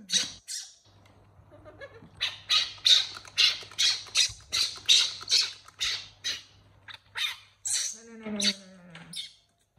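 Baby macaque screaming in a rapid run of short, shrill calls, about three a second, starting about two seconds in: a hungry infant crying for its milk bottle.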